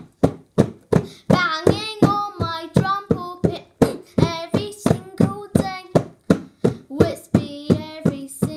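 Pair of bongo drums struck by hand in a steady rhythm, about three to four strokes a second, with a boy singing along over the beat.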